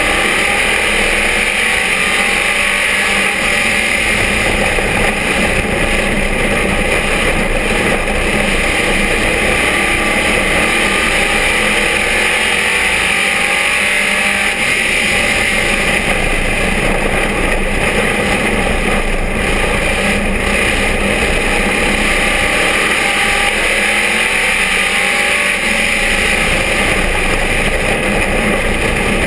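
Dirt-track race car's engine running hard, heard loud from inside the cockpit, its pitch rising and falling as the driver gets on and off the throttle around the oval.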